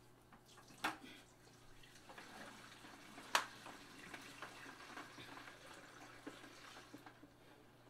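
Water poured from a five-gallon bucket into the tub of a Bubble Magic washing machine: a faint, steady splashing. Two sharp knocks come about a second in and about three seconds in, the second one the loudest.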